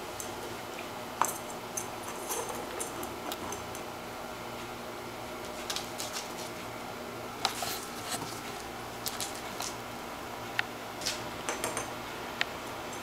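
Small plastic ball knocked and rolling across a parquet floor as a kitten bats and chases it: irregular sharp taps and clicks over a steady hiss, the loudest about a second in and again around seven and a half seconds.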